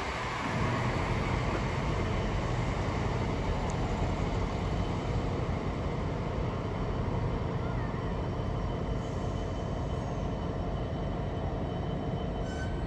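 Diesel train running steadily at the station, its engine note holding even throughout.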